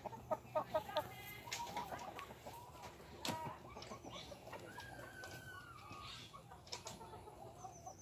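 Gamefowl chickens clucking: a quick run of about four loud clucks in the first second, then scattered calls, with one drawn-out call about five seconds in.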